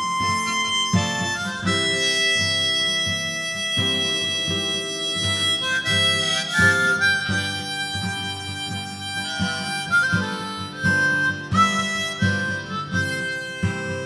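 Blues harmonica playing a solo of held and bent notes over a rhythmic guitar accompaniment, an instrumental break between sung verses.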